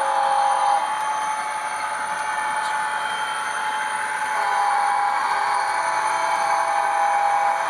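Sound-equipped model of an EMD SD40-2B diesel locomotive, its ESU LokSound decoder playing diesel engine sounds through the model's small onboard speaker. A steady whine rides over the engine noise; it fades about a second in and returns around four and a half seconds.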